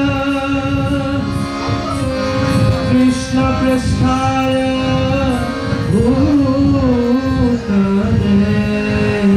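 Indian devotional music: a voice singing long held notes that slide between pitches about six seconds in, over drum accompaniment.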